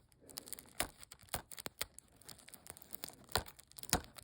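Plastic shrink wrap being torn and crinkled off a 4K Blu-ray case, in irregular sharp crackles.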